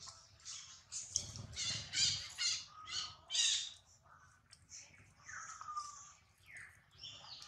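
A baby macaque crying: a quick run of about seven shrill, harsh squeals about a second in, then a few softer falling cries.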